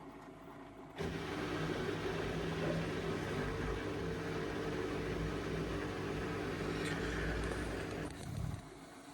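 Indesit washing machine's motor starts abruptly about a second in, turns the drum at a steady speed with a hum, and stops after about seven seconds.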